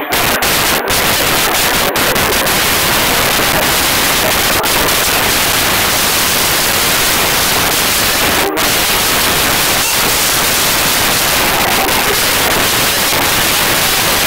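Loud, even static-like noise, broken by a few brief dropouts, the sharpest about eight and a half seconds in.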